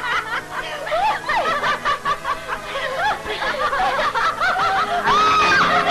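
Several people laughing and giggling at once, their voices overlapping, with music coming in near the end.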